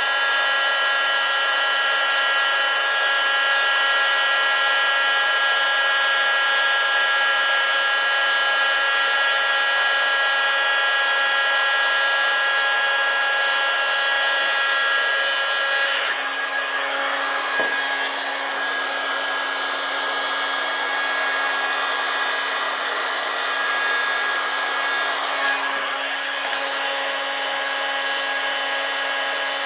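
Heat gun blowing steadily with a whining motor tone, heating foam to soften it for bending. Its tone changes a little past halfway and returns to the first pitch near the end.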